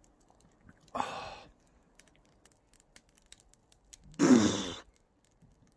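A man breathing out hard twice, sighing, while eating a hot roasted chestnut: a short huff about a second in and a louder, voiced sigh just after four seconds.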